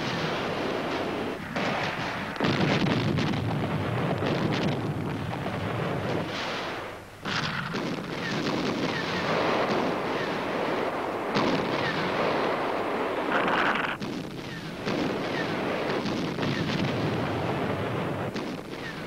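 Battle noise: dense, continuous gunfire mixed with explosions. It dips briefly about seven seconds in and again about fourteen seconds in.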